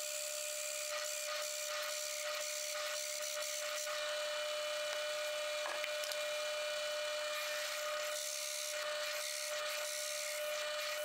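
Drill press boring a large hole through a wooden board: a steady motor whine under the noise of the bit cutting into the wood.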